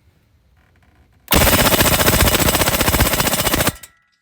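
Impact wrench hammering on a Loctite-seized bolt in one burst of about two and a half seconds, then stopping suddenly; the bolt does not break loose.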